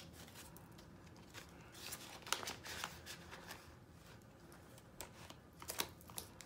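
Faint rustling and crinkling of paper dollar bills and plastic zipper pockets being handled, as cash is counted and a cash-binder page is turned, with a few soft, brief crinkles scattered through.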